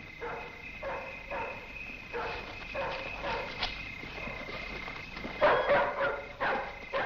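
Dogs barking repeatedly in short calls, louder toward the end, over a steady high chirring of crickets.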